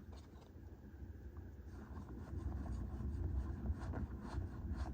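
Faint rubbing and light flicks of Pokémon trading cards being slid and flipped through by hand, over a low steady hum. The handling grows a little busier about halfway through.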